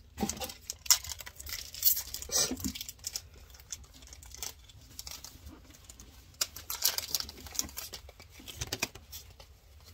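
Foil Pokémon booster-pack wrapper crinkling and tearing as it is opened, in irregular crackly bursts.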